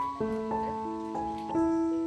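Background piano music: a slow line of single notes struck one after another, about five in two seconds, each left to ring.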